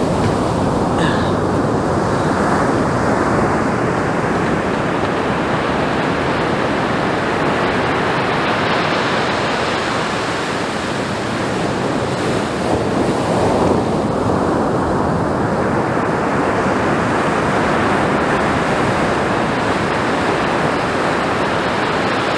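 Ocean surf breaking on a sand beach: a loud, continuous rush of waves that swells twice near the middle.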